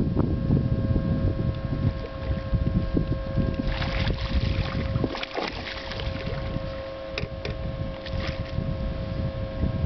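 A hooked largemouth bass splashing at the surface about four seconds in, over wind rumbling on the microphone and a steady hum. A few sharp knocks come near the end as the fish is landed at the boat.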